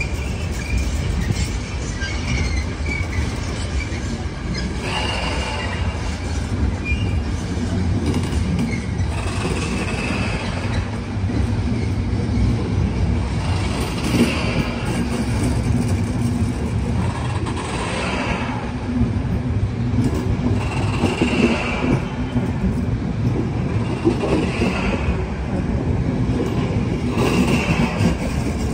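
Blue-and-yellow NS intercity coaches rolling slowly past along a platform: a steady rumble of wheels on rail, with brief wheel squeals about every three to four seconds.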